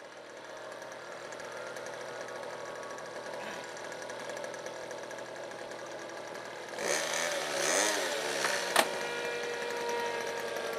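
Small engine of a radio-controlled model Stuka running steadily at idle. A little under seven seconds in, a louder wavering sound rises and falls in pitch for about a second and a half, and it is followed by a single sharp click.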